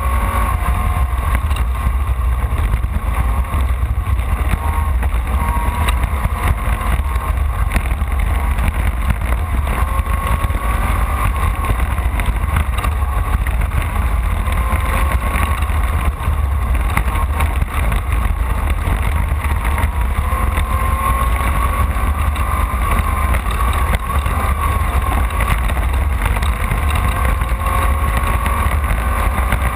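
Off-road race car's engine running hard at speed, its revs rising and falling, over a deep constant rumble.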